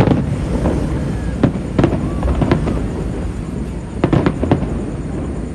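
Fireworks going off: a string of sharp bangs at irregular intervals, with a quick cluster of three about four seconds in.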